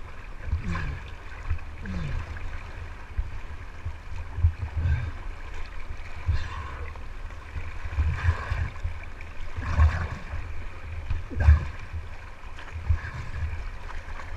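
Fast river water rushing and splashing around a whitewater kayak, with irregular low thumps of water slapping the hull.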